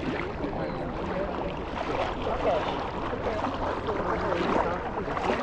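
Beach crowd chatter: many voices talking over one another at once, over a steady wash of background noise.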